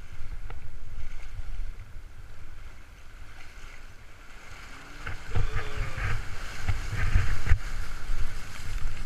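Muffled low rumble of wind and water noise heard through a waterproof camera case on a moving boat, getting louder about five seconds in, with faint muffled voices.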